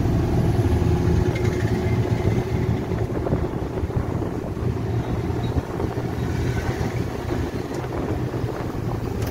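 Auto-rickshaw's small engine running steadily as it drives along, heard from inside the open passenger cabin with road and wind noise.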